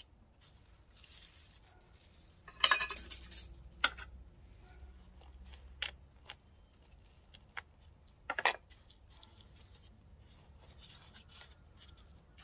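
Gloved hands and metal tweezers working in granular potting mix around a freshly potted variegated spider plant: scattered light clicks and scratches, with a short patch of crackly scraping about two and a half seconds in and single sharp ticks later.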